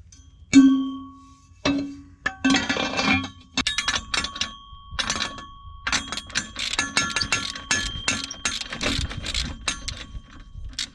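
A metal exhaust pipe clanks and rings against the exhaust manifold flange as it is set in place. Then a socket ratchet clicks rapidly, in runs, as the flange bolts are run in.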